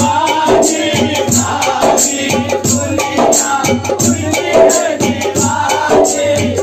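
A man singing a devotional song into a microphone through an amplified sound system, with other voices joining in, over a steady rattling percussion beat.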